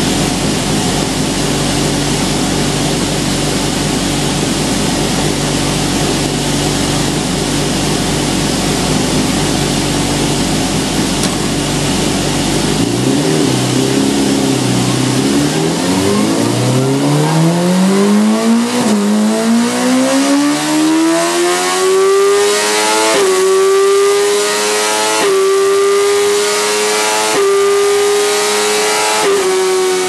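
Suzuki GSX-R1000 inline-four engine in an OMS race car on a rolling road, running steadily with the wheel still for about the first thirteen seconds, then revving up hard. From about eighteen seconds in it goes up through the gears, with a quick upshift from the SBD gearshift system roughly every two seconds, each a brief dip in pitch before the note climbs again.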